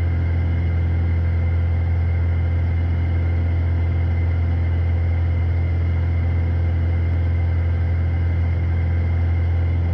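Steady drone of a Piper PA-46 Malibu's piston engine and propeller at climb power, heard inside the cabin, unchanging throughout.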